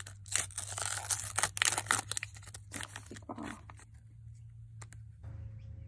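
A foil-lined paper snack-bar wrapper being torn and peeled open by hand: a quick run of rips and crinkles that thins out after about three and a half seconds.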